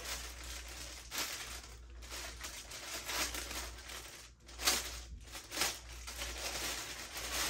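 Packaging rustling and crinkling as items are handled and pulled out, with a couple of louder crackles about four and a half and five and a half seconds in.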